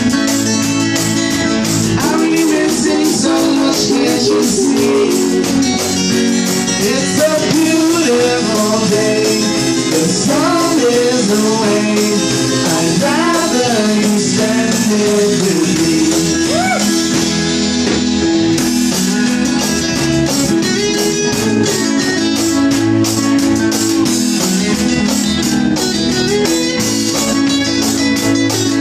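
Live band playing a rock song: a man singing over strummed acoustic guitars and a drum kit.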